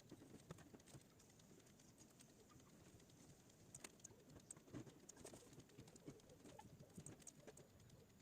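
Near silence: faint room tone with scattered soft clicks, several bunched in the second half.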